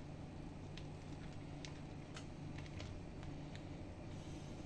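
Saucepan of water with river prawns coming back to the boil, a quiet steady bubbling hiss over a low steady hum, with a few faint light clicks of a utensil touching the pot.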